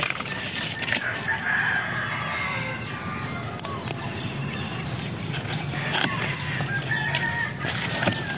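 A rooster crowing, twice: one long crow starting about a second in and another near the end, with a few sharp clicks in between.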